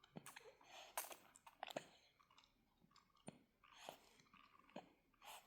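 Faint, irregular sucking clicks and smacks of a baby feeding from a bottle, with small swallows in between.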